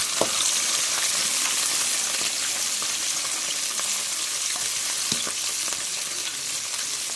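Hot oil sizzling steadily around browned garlic and ketchup in a pan as a silicone spatula stirs the sauce, with two brief knocks, one just after the start and one about five seconds in.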